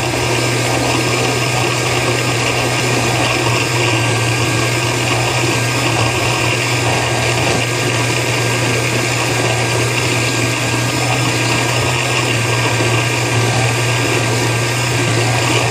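Countertop blender running steadily at one speed, its motor humming as it purées roasted tomatillos and jalapeño into salsa.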